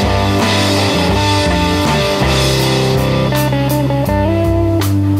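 Background rock music with guitar and drums; the drum hits come through more plainly in the second half.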